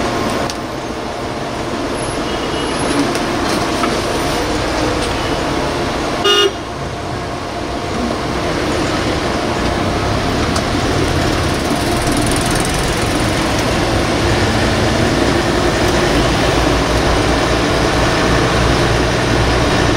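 Steady street-traffic and running noise heard from inside a moving city bus, with one short vehicle horn toot about six seconds in.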